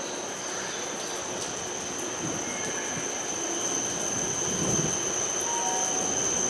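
A Shinano Railway 115-series electric train rolls slowly into the platform and stops, with a steady high whine heard throughout. The sound grows a little louder in the second half.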